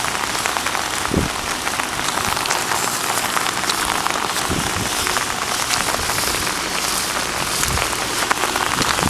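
Heavy rain falling steadily, with many sharp drop ticks spattering close by.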